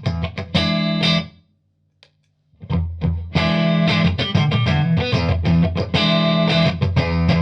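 Electric guitar played through a Limetone Audio Focus NX compressor pedal with its gain turned up, giving a lightly distorted, tube-like tone. The playing breaks off a little over a second in and starts again after a pause of about a second.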